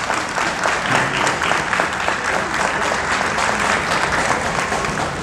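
Crowd applauding steadily: many hands clapping in a dense patter.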